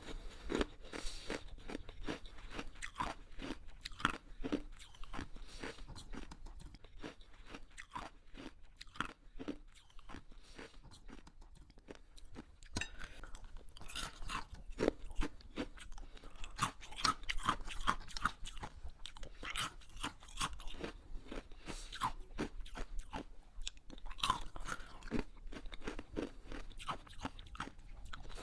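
Hard ice being bitten and chewed close to the microphone: dense, irregular crunching and cracking, easing off briefly partway through before picking up again.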